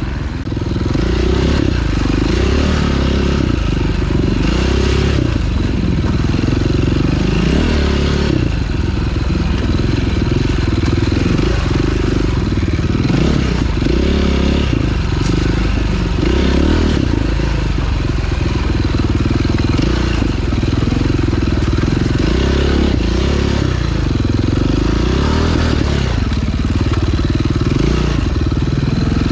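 2009 KTM 530 EXC dirt bike's single-cylinder four-stroke engine running hard while being ridden, its revs rising and falling over and over as the throttle is worked.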